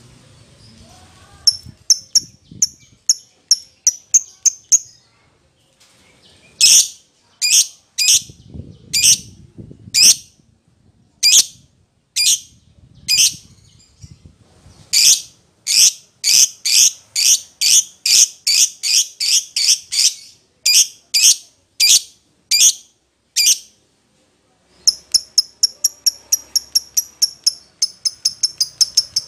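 Agitated lovebird calling in sharp, shrill chirps. It opens with a fast ticking run, then gives louder calls at about two a second. After a short pause near the end it breaks into rapid chatter of about four chirps a second. This is the excited 'emosi' fighter calling used to provoke other lovebirds into answering.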